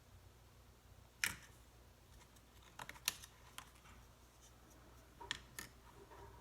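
Scattered sharp clicks and taps of small tools and parts being handled during laptop disassembly: one loud click about a second in, a quick cluster around three seconds, and two more near the end.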